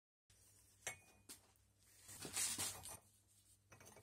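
Gloved hands handling short lengths of square steel tube at a bench vise: a few light metal clicks and, about two seconds in, a brief scraping rustle that is the loudest sound.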